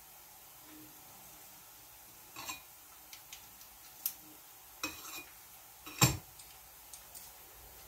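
Metal kitchen utensils clicking and knocking against a wooden cutting board and dishes, a scattering of sharp clicks with the loudest knock about six seconds in, over the faint sizzle of diced onion frying in a pan.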